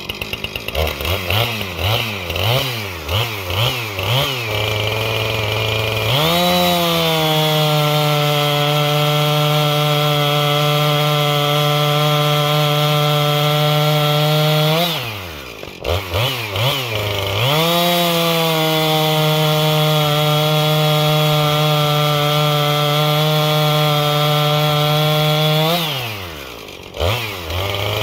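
Husqvarna 460 Rancher 60cc two-stroke chainsaw with a 20-inch bar, first blipped in a few quick revs, then held at full throttle while cutting through a maple log. The engine drops back briefly about halfway and again near the end, then goes back to full throttle for the next cut.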